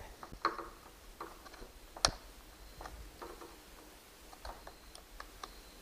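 Screwdriver prying along the edge of a Dell Inspiron 13-7359 laptop's bottom cover: scattered clicks and snaps as the plastic case clips are forced, the sharpest snap about two seconds in.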